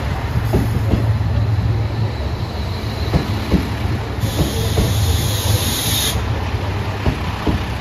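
Limited express diesel train rolling slowly into a station platform: a steady low engine hum, with scattered wheel clicks over the rail joints. A hiss of compressed air sounds for about two seconds halfway through.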